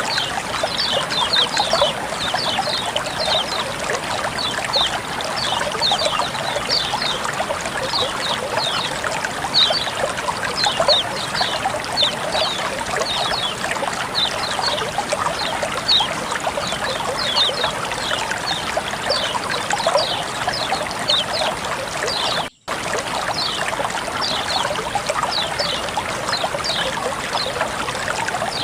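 Water trickling and splashing steadily, with many quick high plinks running through it. The sound drops out for an instant about three-quarters of the way through.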